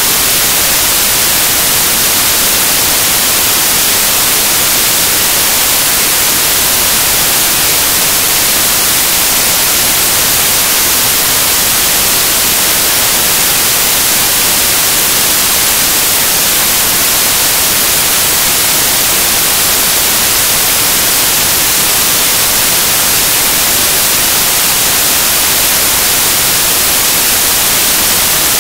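Loud, steady static hiss, strongest in the treble, with nothing else heard over it.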